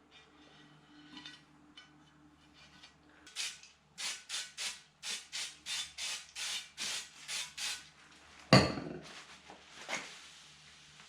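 Quick run of about fifteen back-and-forth scraping strokes on window glass, taking off leftover window tint, then a single sharp knock, the loudest sound, and a lighter one just after.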